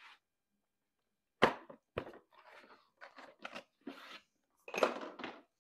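Hard plastic carry case of a cylinder leak-down tester kit being shut and handled on a wooden table. A sharp snap comes about a second and a half in, then another click, then a run of short clicks and scrapes, a little louder near the end.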